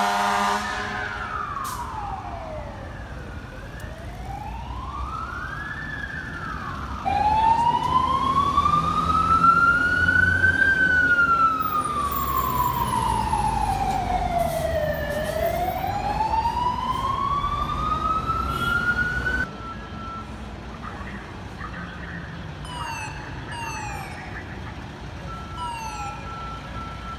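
Fire engine sirens wailing in slow rising and falling sweeps, louder after a cut about seven seconds in. From about two-thirds of the way through, a quieter siren gives short, quickly repeated falling tones, then a steady tone near the end.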